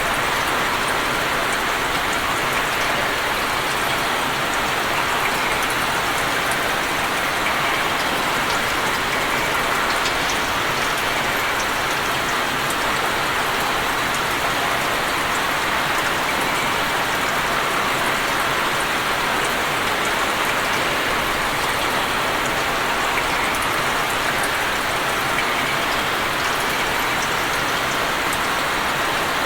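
Steady rain falling on open water: an even hiss of many drops pattering on the surface.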